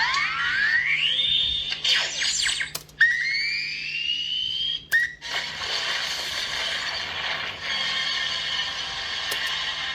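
Electronic sci-fi sound effects from a prop control panel's sound board. A rising power-up whine climbs and levels off, then several quick rising sweeps follow, and about three seconds in a second whine starts sharply and rises. From about five seconds in there is a steady hissing, crackling noise with faint tones, over a low hum.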